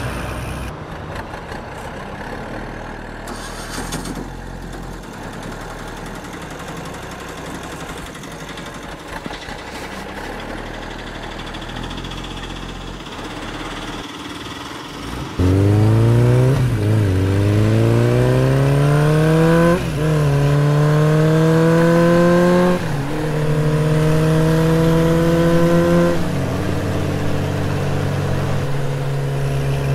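Car engine running at a low rumble, then, about halfway through, accelerating through the gears: its pitch climbs, drops sharply at each of three shifts, and then holds steady at cruising revs.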